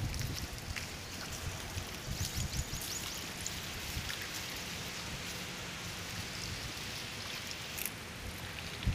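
Steady outdoor background hiss with an uneven low rumble, a few faint high ticks about two to three seconds in, and one sharp click near the end.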